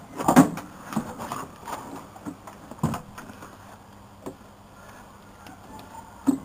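A few scattered knocks and clicks from handling equipment, the loudest about half a second in and another just before the end; no engine is running.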